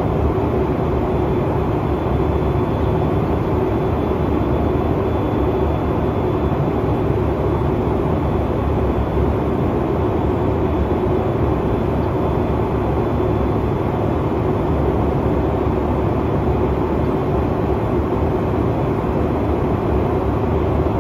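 Steady cabin noise inside an Embraer E190 airliner in flight: airflow and its twin GE CF34 turbofan engines make an even, unchanging drone, heaviest in the low rumble, with a faint high whine on top.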